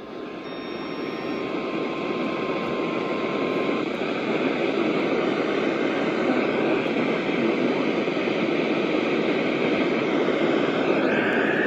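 Weather radio receiver hissing with static, a steady rushing noise that swells in over the first couple of seconds and then holds even, as the broadcast signal is lost to interference. A faint steady tone sits under the static for the first few seconds.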